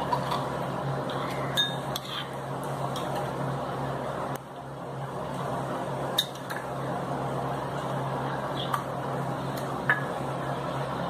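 Steel spoon clinking sharply against a small glass bowl a handful of times while egg mixture is scooped out, over a steady background hum.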